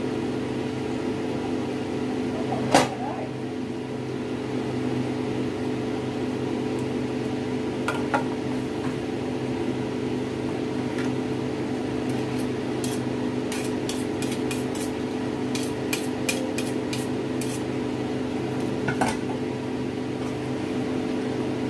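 A steady appliance hum runs throughout. Over it, a slotted spatula knocks against a stainless-steel roasting pan of sauce, sharply once a few seconds in and more softly a couple of times later. A quick run of light clicks comes in the second half.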